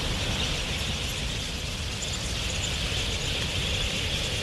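A vast flock of wild budgerigars in flight: a steady mass of wingbeats with a dense haze of high calls above it.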